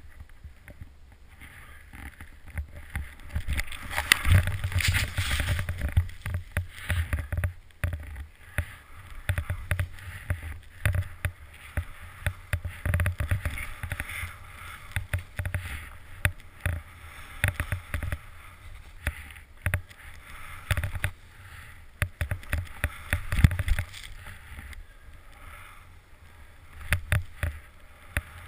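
Snowboard sliding through powder snow, its hiss coming in surges, over a low wind rumble on the camera's microphone and frequent sharp knocks. It gets louder from about four seconds in.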